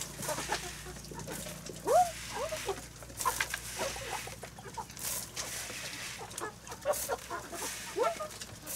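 Flock of hens clucking, with loud rising-and-falling calls about two seconds in and again near the end, among short clicks and rustles.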